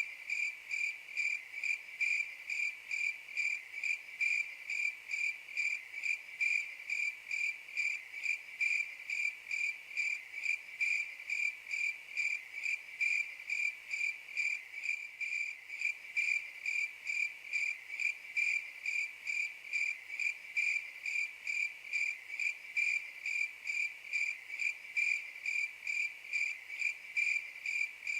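Cricket chirping in a steady, even rhythm of a few high, clear chirps a second: the 'crickets' sound effect used as a meme for awkward silence.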